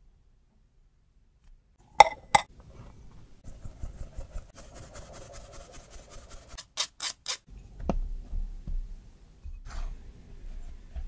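Flour being sifted through a mesh sieve into a glass bowl: a faint, rapid, even rattle of the sieve being shaken, ended by three sharp knocks. Before it come two sharp clicks; after it, a silicone spatula scrapes and cuts butter into the flour against the glass bowl.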